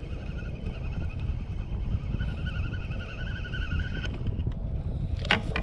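Spinning reel being cranked, its gears giving a faint wavering whine, over a steady low rumble of wind on the microphone.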